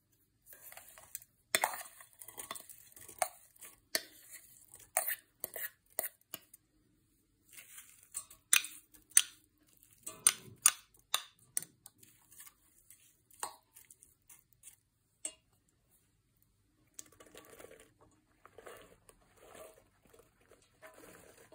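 Kitchen utensil sounds as vegetables go into a stainless steel pot: an orange spatula scraping and tapping against a ceramic bowl and the pot rim, with many sharp clicks. Near the end, sliced mushrooms are tipped in by hand with soft rustling thuds.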